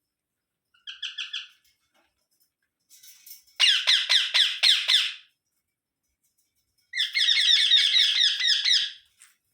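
Indian ringneck parakeet chattering in three bursts of rapid repeated high notes: a short, fainter one about a second in, then two longer, loud runs in the middle and near the end.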